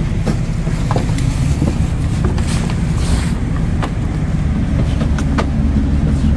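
Houseboat engine running steadily at low revs, a low rumble that deepens slightly about four seconds in, with a few light knocks over it.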